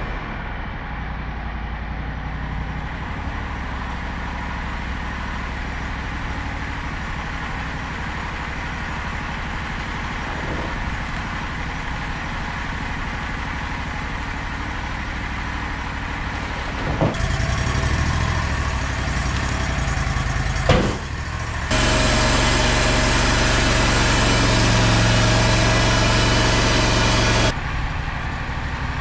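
Portable sawmill's engine running steadily while sawing a hemlock log, with two sharp knocks in the second half. Then a louder stretch of about six seconds with a steady whine that cuts off sharply, the blade cutting through the log.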